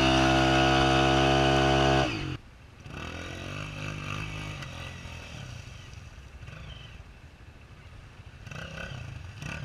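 Trail motorcycle engine held at high, steady revs, cutting off abruptly about two seconds in. This gives way to a much quieter stretch of low engine rumble and light clatter.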